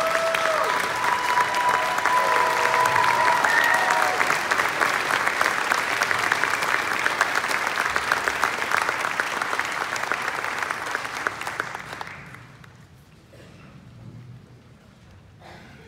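Audience applauding, dying away about twelve seconds in.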